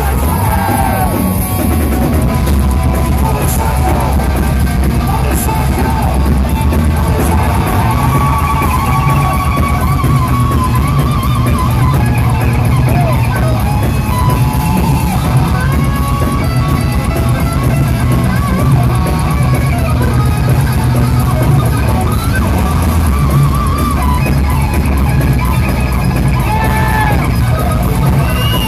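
Heavy metal band playing live, loud: distorted electric guitars through Marshall stacks over bass and drum kit, with a lead guitar line that bends and wavers in pitch and no vocals.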